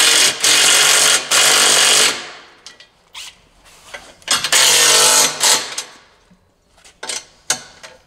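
Cordless impact wrench hammering bumper bolts tight. It runs in a two-second burst with two short breaks, then a second burst of about a second midway, and a few light clicks near the end.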